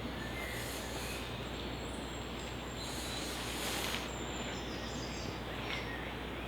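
Woodland ambience: steady background noise with a few faint bird chirps and short whistles, and a brief rustle about four seconds in.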